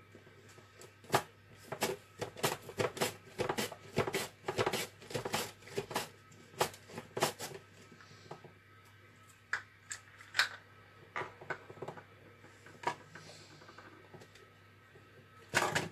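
Manual push-down vegetable dicer chopping tomato: the plastic lid is pressed down again and again to push the tomato through the blade grid, giving a fast run of sharp clacks. The clacks become fewer and farther apart from about eight seconds in.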